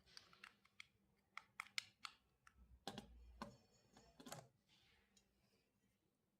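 Faint clicks and taps of small plastic parts being handled: a quick run of sharp clicks in the first two seconds, then a few duller knocks around three to four and a half seconds in.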